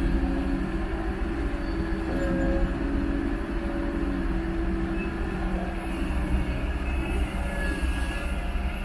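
Kobelco SK200 hydraulic excavator's diesel engine running under load while the arm swings and dumps a bucket of soil: a steady low rumble with a droning hum on top.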